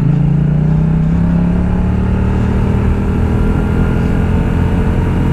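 Yamaha MT-07's 689 cc parallel-twin engine running under way, its pitch rising a little over the first second or two, then holding steady.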